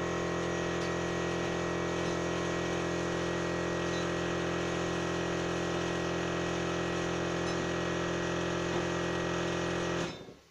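Steady mechanical hum made of several fixed tones at an even level, which cuts off suddenly near the end.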